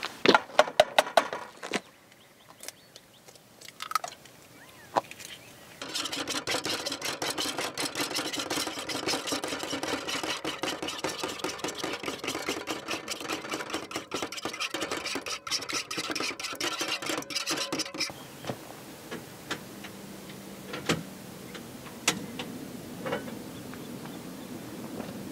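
A fork whisking eggs in a bowl: a fast run of scraping, clinking strokes that starts about six seconds in and stops suddenly about twelve seconds later. A few sharp knocks come first, and it is quieter afterwards with a few isolated clicks.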